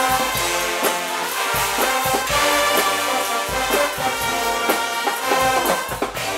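Guggenmusik band playing loud brass and drums: trumpets and trombones carrying a melody in held and moving notes over a steady drum beat.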